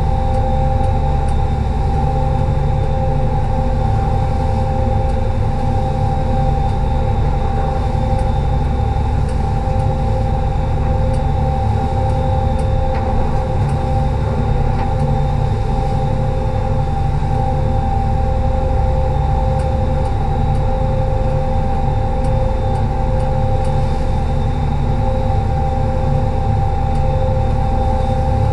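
A party fishing boat's engines running steadily while the boat cruises, a low rumble with a steady whine on top and the rush of water along the hull.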